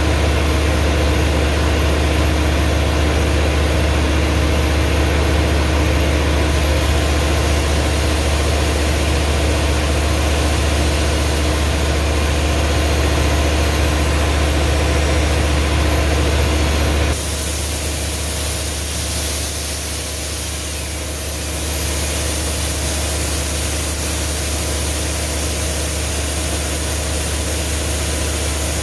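4-inch angle grinder with a knotted wire wheel brushing grime off the hardened ways of a Monarch lathe bed. Its high motor whine rises and falls as the wheel is worked, over a steady low engine hum from a running generator. About 17 seconds in, the sound drops and changes abruptly.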